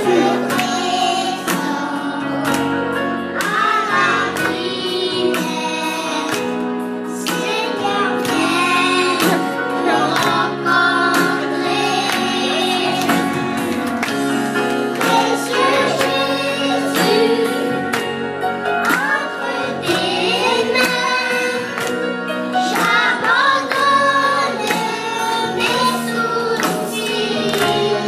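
A group of boys singing a gospel song into microphones, backed by an electronic keyboard playing sustained chords with a steady beat.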